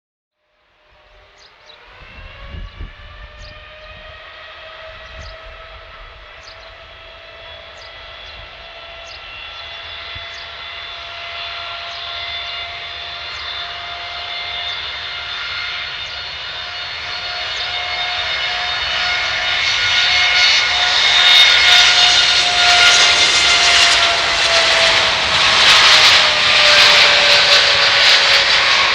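Boeing 787-8 jet engines giving a steady, siren-like whine that rises in pitch over the first couple of seconds and then holds, while the engine noise grows steadily louder. The whine dips slightly in pitch near the end.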